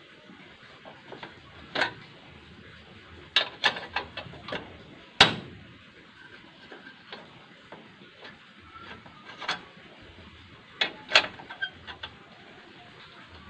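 Sharp metallic clinks and knocks of thin steel rebar being bent into stirrups on a homemade lever bending tool, the steel rod striking the bender's pins and frame. They come irregularly in small clusters, the loudest about five seconds in and another cluster around eleven seconds.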